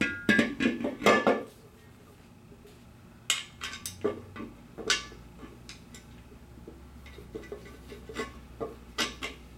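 Metal clanking with a short ring as the stainless steel barber-chair base is shifted against the new hydraulic cylinder, loudest in the first second and a half. Then scattered light metallic clicks and knocks as the mounting bolts are started by hand.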